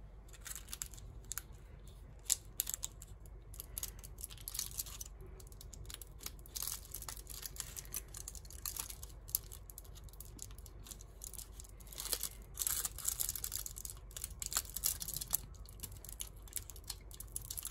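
Wooden-handled folding knife cutting a cup of blue gel solid fuel in half through its clear plastic wrapper: irregular crinkling, crackling and scratching of the plastic film, busiest about two-thirds of the way through.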